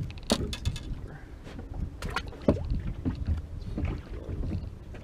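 Wind on the microphone and water on the boat hull make a steady low rumble, broken by several sharp knocks and clatters on the boat, the loudest about two and a half seconds in.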